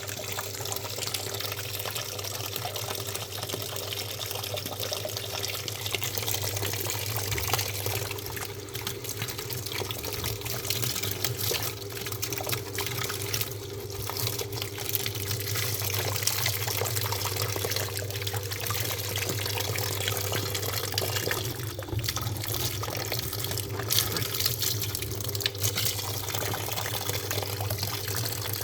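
Water running steadily into a top-loading washing machine's tub, over a low steady hum.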